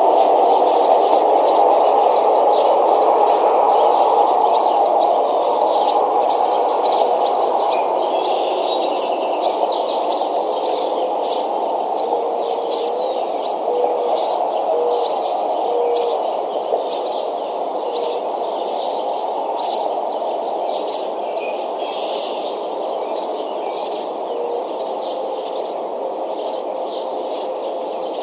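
Birds chirping in short repeated notes, about two a second, over a steady rushing background noise that is the loudest sound throughout.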